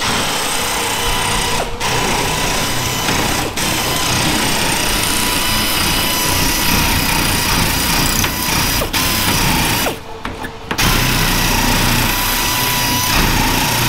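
A power tool cutting through diamond plate metal, running steadily with a high whine, a harsh hiss and brief dips, and pausing for under a second about ten seconds in. The diamond plate is hard going to cut.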